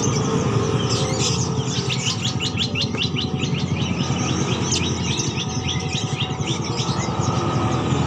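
Many caged songbirds chirping and twittering together, with rapid runs of quick high chirps about one to three and a half seconds in, over a steady low rumble.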